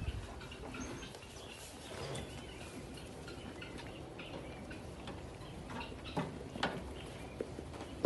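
Small birds chirping lightly on and off, with a couple of sharp knocks about six seconds in as a lamb's hooves strike the wooden pen rails.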